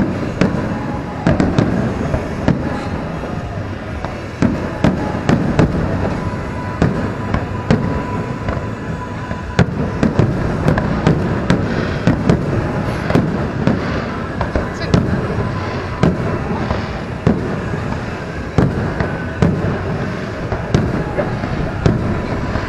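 Aerial firework shells bursting in a continuous display: a steady run of sharp bangs, about one or two a second, over a constant rumble.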